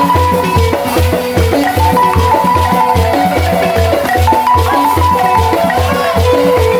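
Senufo balafon music: wooden-keyed xylophone melody over a steady low pulse of about three beats a second.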